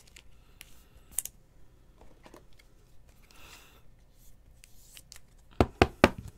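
Trading cards and cardboard packaging being handled on a table: faint rustling and small clicks, then about four sharp taps in quick succession about five and a half seconds in.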